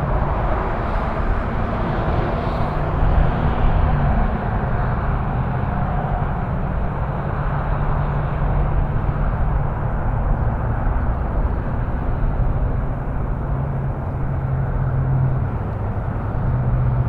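Steady rumble of a Boeing 787's jet engines heard from a distance, strongest in the low end, holding level with no sharp rise or fall.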